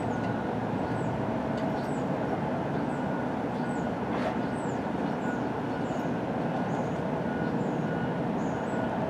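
Steady rain during a thunderstorm, an even hiss with no thunderclap, with a faint high chirp repeating roughly once a second.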